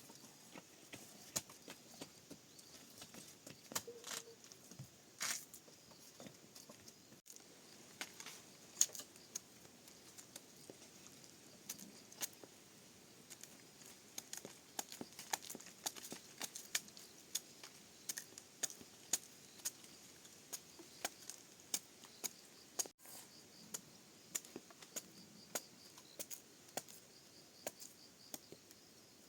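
A long run of light, sharp clicks and taps from hand work: scattered at first, then about one to two a second.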